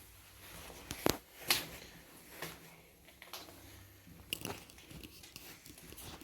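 Footsteps crunching underfoot in an enclosed underground shelter, a handful of irregular steps roughly a second apart.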